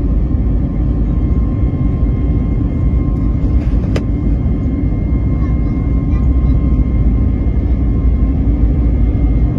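Airbus A321neo's CFM LEAP-1A turbofans heard from inside the cabin: a steady loud rumble with a thin steady whine above it. A single sharp click about four seconds in.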